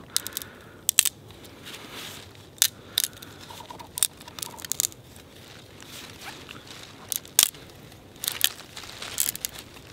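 A long thin stick being split lengthwise by hand, its wood fibres giving irregular sharp cracks and crackles as the two halves are pulled apart and the split runs down the grain.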